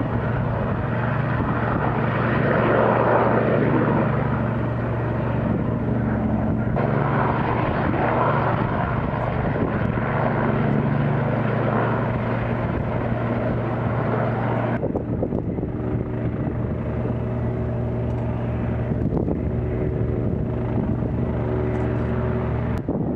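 Helicopter flying nearby, its rotor and engine running with a steady, droning hum. The sound changes abruptly about 7 and 15 seconds in; the last stretch has a clearer hum of steady tones.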